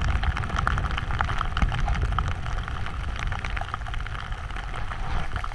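A snowboard riding through deep powder snow: a steady hiss with many small crackles, over a low wind rumble on the microphone.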